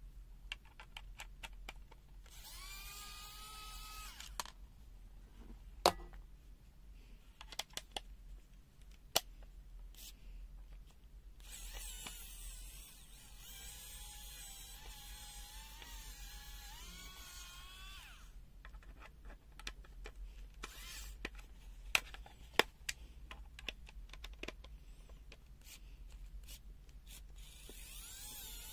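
A small electric screwdriver whirring in short runs, one brief and one about six seconds long, its pitch wavering with the load as it works on the screws of a digital multimeter's case. Sharp clicks and taps of the screws and plastic parts come throughout, the loudest two a few seconds in and about two-thirds of the way through.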